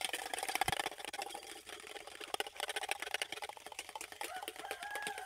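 Egg whites being beaten by hand in a stainless steel bowl: fast, even clicking strokes of the utensil against the metal bowl.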